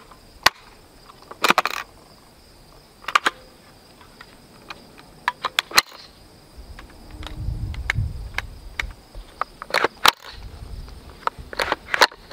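Scattered clicks and clacks of an H&K SL8-1 rifle being handled, its polymer and metal parts knocking together, singly and in short clusters. A low rumble of handling comes in the middle.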